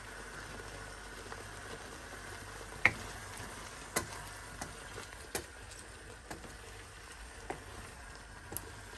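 Tomato sauce with potatoes simmering in a karahi: a low steady bubbling hiss with scattered sharp pops and knocks, the loudest about three seconds in.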